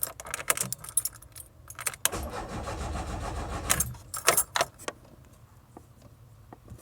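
Keys jangling and clicking in a Volkswagen van's ignition, then about two seconds of the starter cranking without the engine catching: the kill switch has cut the ignition. Another rattle of keys follows, and then it goes quieter.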